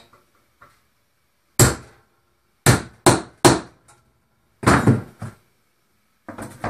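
Hammer blows knocking an alignment bolt out of a freshly glued, clamped plywood-and-2x4 wheel blank. There are about seven sharp strikes at uneven intervals, three in quick succession about three seconds in, and a few lighter knocks near the end.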